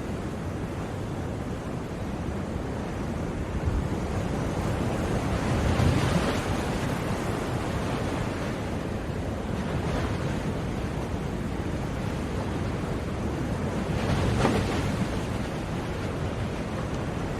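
Ocean surf: a continuous wash of waves, with two waves breaking louder, one about a third of the way through and another near the end.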